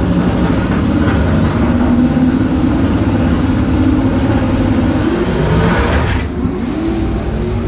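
Drag car's engine running loudly as heard from inside the car, its pitch drifting slightly upward toward the end, with a hiss that cuts off suddenly about six seconds in.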